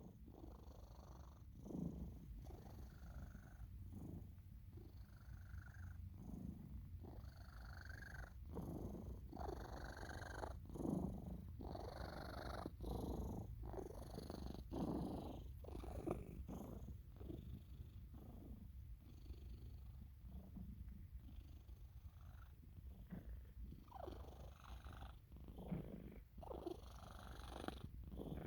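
Sphynx cat purring steadily while asleep, with a snoring breath every second or two over the purr.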